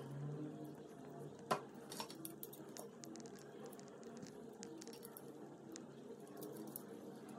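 Faint metal clicks and light clinks of a combination square being handled, its head slid along the steel blade and its lock nut worked, with one sharper click about a second and a half in.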